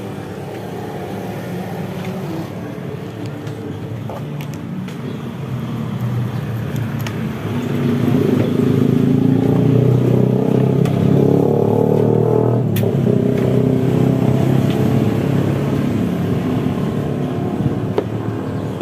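A motor vehicle running close by, growing louder from about six seconds in, loudest in the middle and easing off toward the end, as when a vehicle passes or idles on the street.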